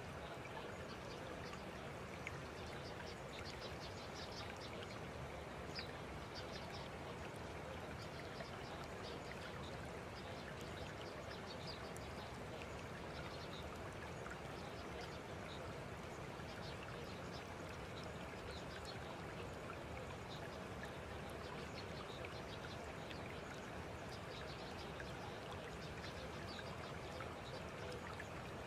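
Steady nature ambience: an even, rushing, water-like noise with many short, faint high-pitched chirps scattered through it.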